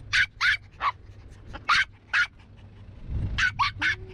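Maltese dog barking repeatedly in short, sharp, high yaps, about eight barks with short pauses between them.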